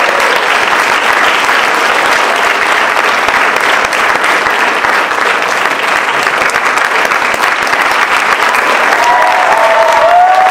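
Audience applauding steadily, with the cast on stage clapping along.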